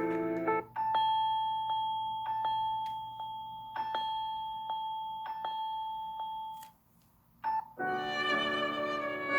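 Samsung Galaxy S21 Ultra stock ringtones playing back to back. One ringtone ends in the first second. The next is a bell-like electronic tune, a held tone with short plucked notes over it, which stops near seven seconds. About eight seconds in, another ringtone begins, with a string-like melody.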